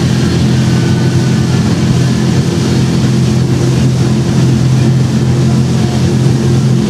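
Towing motorboat's engine running at a steady speed, a constant drone, over the rush of its wake.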